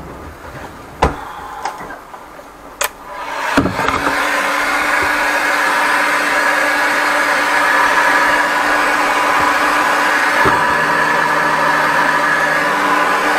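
A handheld heat gun switches on about three and a half seconds in and then blows steadily with a whirring hum. A few sharp knocks come before it starts.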